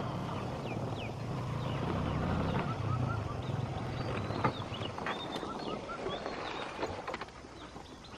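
Birds calling in short repeated rising chirps and quick high downward notes over a low steady rumble that fades out about two-thirds of the way through; one sharp click near the middle.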